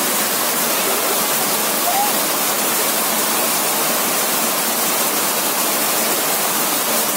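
Steady rush of flowing river water: a loud, even hiss that does not change.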